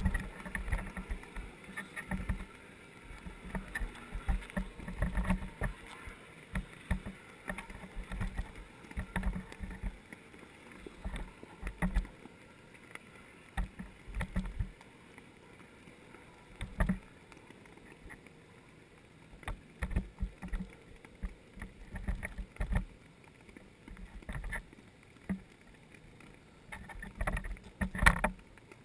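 Underwater camera housing picking up irregular muffled low thumps and knocks as water moves it, with scattered sharper clicks and one louder knock near the end.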